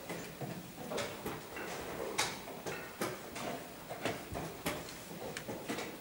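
Irregular sharp clicks and knocks, about two to three a second, typical of wooden chess pieces being set down and chess clock buttons being pressed during blitz play. The loudest come about two seconds in and near the end.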